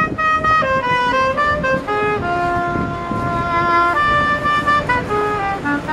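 Woodwind playing a melody: a run of short notes, then a few longer held notes in the middle, then quicker notes again near the end.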